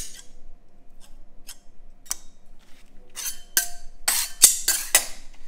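Metal tools clicking and scraping against the work surface as a hard-candy sugar mass is cut and worked: a sharp click at the start, a few light taps, then a run of loud scraping strokes in the last two seconds.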